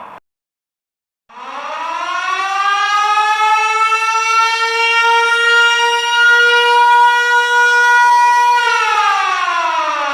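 Air-raid siren sounding a military alarm. The end of a falling wail cuts off at the start, and after about a second of silence the siren winds up, rising in pitch. It then holds a steady high tone and starts to wind down again near the end.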